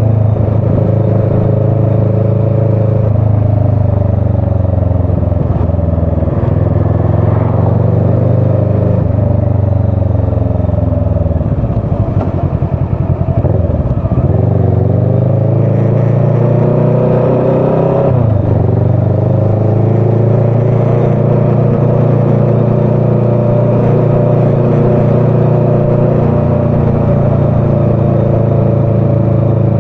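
Motorcycle engine heard from the rider's seat, running at low speed in traffic. About halfway through it eases off and the pitch drops, then it pulls away again with a rising pitch, changes gear, and settles to a steady run.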